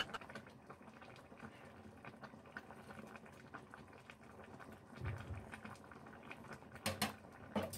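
Pork sinigang broth simmering in a stainless steel pot, bubbling with many small pops. There is a soft thump about five seconds in and two sharp clicks near the end.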